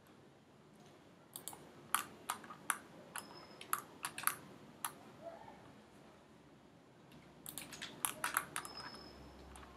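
Computer mouse and keyboard clicking: scattered sharp clicks through the first half, a pause of about two seconds, then a quicker flurry of clicks near the end.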